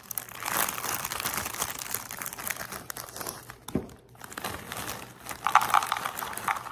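Plastic snack bag crinkling and rustling as a hand rummages in it, a dense run of crackles with a brief pause a little before four seconds in.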